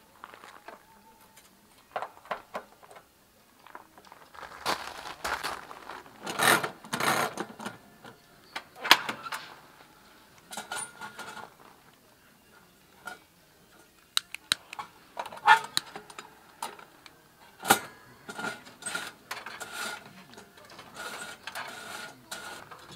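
Scattered metal clicks, clinks and rustles as a round kerosene heater and its plastic fuel can are handled with gloved hands: caps worked, parts of the heater touched and a lighter used to light it by hand, with a few louder clanks among them.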